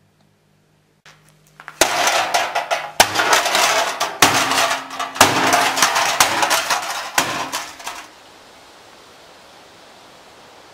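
Loud banging and clattering in a workshop, with heavy blows about once a second. It starts about two seconds in and stops suddenly about eight seconds in, and a steady hiss of wind follows.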